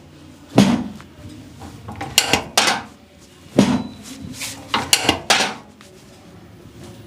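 Sharp slaps and knocks of hands-on chiropractic treatment on a patient lying face down: about seven short hits in an uneven series, some in quick pairs or triples.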